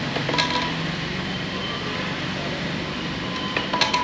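Steady background traffic noise, with a few short sharp clicks about half a second in and again near the end.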